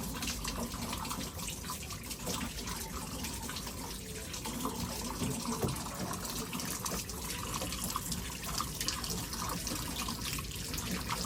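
Water running steadily from a shower valve, a continuous rush with irregular small spatters.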